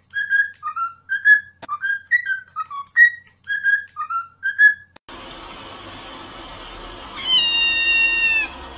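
A whistled tune of short, bouncy notes, which stops suddenly about five seconds in. Then a cat gives one long, loud meow near the end.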